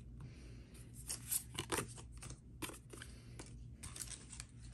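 Faint, irregular clicks and taps of Magic: The Gathering trading cards being handled and laid down on piles on a playmat, with a booster pack picked up near the end.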